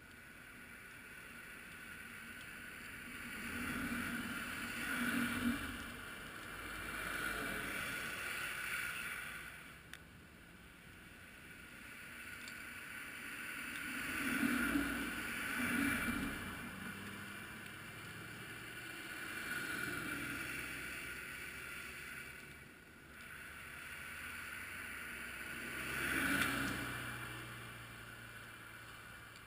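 Muffled vehicles passing one after another, each swelling and then fading, about five times.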